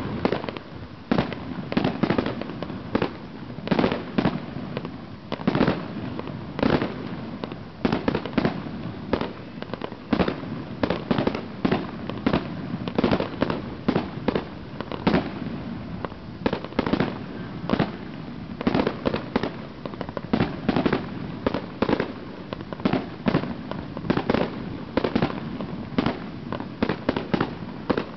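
Consumer firework cakes firing shot after shot: a steady run of sharp bangs, about two a second, as tailed shells launch and break into small aerial bursts.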